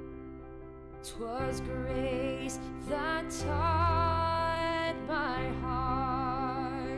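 Slow background music: a long-held melody line with vibrato over low sustained chords that change about every two seconds.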